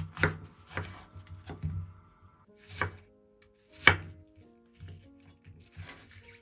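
Kitchen knife chopping an apple into small cubes on a wooden cutting board: about ten uneven knocks of the blade through the fruit onto the board, the loudest about four seconds in.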